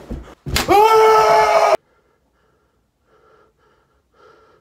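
A man's loud, high-pitched gasp of fright at the sight of a huge cockroach, starting suddenly, held for about a second and cut off abruptly.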